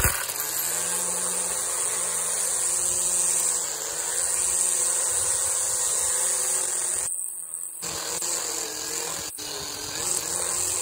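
String trimmer running with its line spinning and cutting grass and weeds: a steady motor whine that wavers a little in pitch as it cuts, with a short break about seven seconds in.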